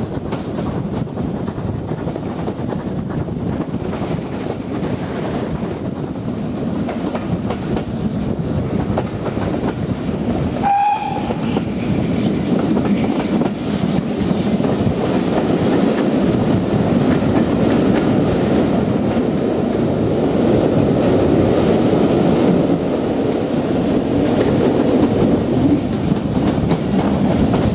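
Steady rumble and clatter of heritage railway carriages running over the track, heard from an open carriage window, with a short, high steam-locomotive whistle about eleven seconds in. The running noise grows louder in the second half.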